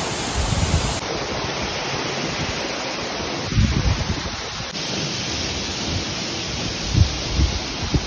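Waterfall pouring, a steady rush of falling water, with a few low thumps of wind on the microphone.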